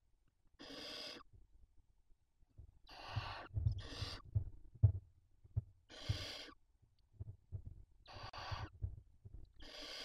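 Barn owls in a nest box giving six drawn-out hissing calls of about half a second each, the snoring hiss typical of chicks begging for food. Low knocks and scuffling come from the birds moving on the nest floor, with one sharp knock near the middle.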